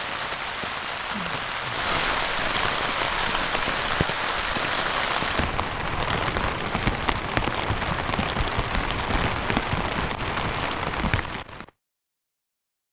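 Steady rain falling on tent and tarp fabric: a dense hiss dotted with many separate drop hits. It cuts off suddenly about a second before the end.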